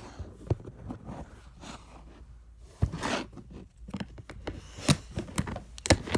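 Slime with sprinkles in it being squished and pushed back into its container: irregular sticky pops and clicks, with several sharp ones in the second half.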